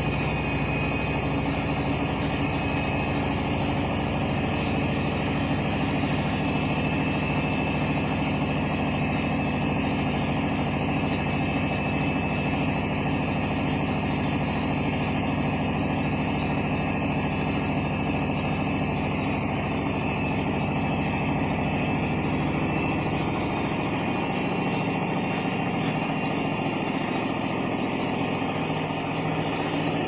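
Front-loading washing machine on its final spin: the drum turning at speed with a steady motor hum, a rumble from the drum and a fixed high-pitched whine. The deepest rumble eases off near the end.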